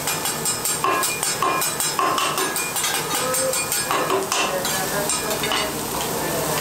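Metal spatula clicking and scraping rapidly on a hot steel teppanyaki griddle while vegetables sizzle on it.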